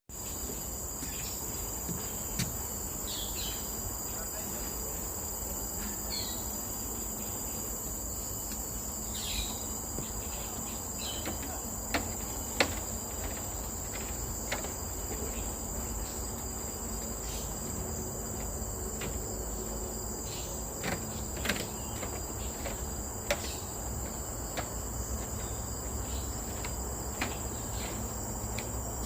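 Steady high-pitched drone of an insect chorus, with scattered soft clicks and a few brief chirps over it.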